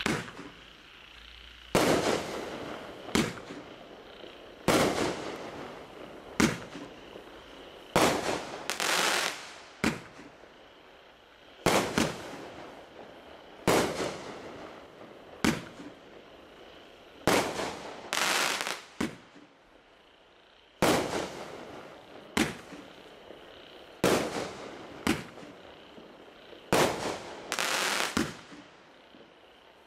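A 500-gram consumer fireworks cake, Skysong's 16-shot 'Out of The Ashes', firing its shots in succession: sharp bangs every second or two, often in close pairs, each dying away with a short echoing tail.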